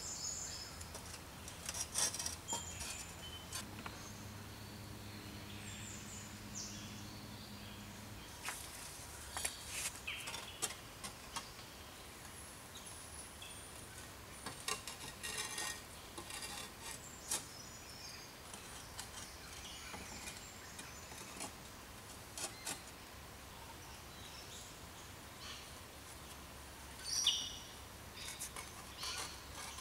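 Fired clay roof tiles clicking and knocking against each other as they are handled and set in place, among chirping forest birds. A faint low hum stops about eight seconds in.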